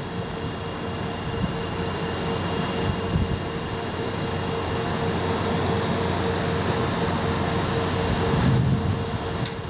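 Standing JR Freight EF64 electric locomotives humming steadily, their auxiliary machinery running while the train waits at a stop, with a constant mid-pitched whine over a low rumble. A brief high-pitched chirp comes near the end.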